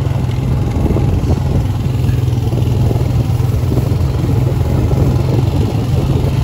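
Quad (ATV) engine running steadily under way, a continuous low drone with a rattly edge.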